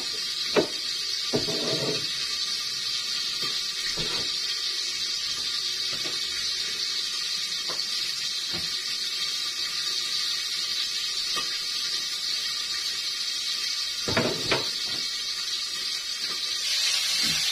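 A knife chopping bitter gourd makes a few sharp knocks at the start, over a steady frying hiss from a covered wok on a gas burner. Near the end come two clanks from the pan lid, and the sizzling grows louder as the lid is lifted.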